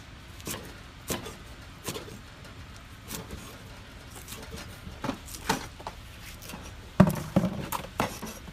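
Steel cleaver chopping leafy greens on a round wooden chopping board: sharp knocks about once a second, then a quicker run of harder chops near the end.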